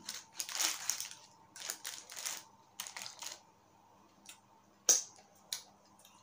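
Paper food wrapper crinkling in several short bursts as a chicken burger is handled and picked apart, then a sharp click about five seconds in and a smaller one just after.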